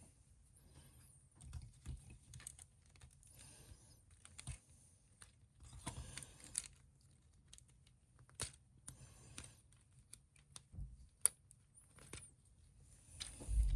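Plastic action-figure parts being handled and fitted together: scattered small clicks and short rustles, with a louder bump near the end.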